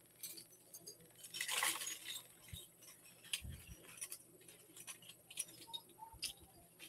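Faint small clinks and rattles of metal fashion earrings and their findings being handled, with a brief rustle about a second and a half in.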